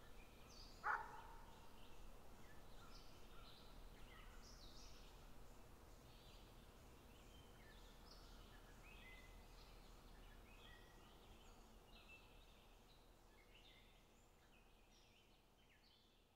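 Faint outdoor ambience of small birds chirping and calling, with one louder short call about a second in. It fades out toward the end.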